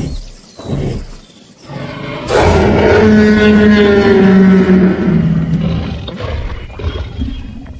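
T-Rex roar from a toy dinosaur or a sound effect in the play: a few short growls, then one long, loud roar from about two seconds in that slowly falls in pitch and fades.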